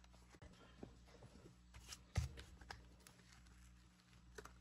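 Faint handling of paper bills, a plastic zip pouch and a binder wallet: scattered light clicks and rustles, with a soft thump about two seconds in.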